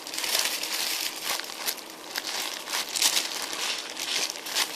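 Thin plastic bag crinkling and rustling as it is handled and opened, with many small irregular crackles.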